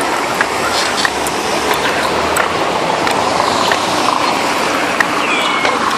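Steady road and wind noise of a moving car, with a few faint clicks and a short high chirp about five seconds in.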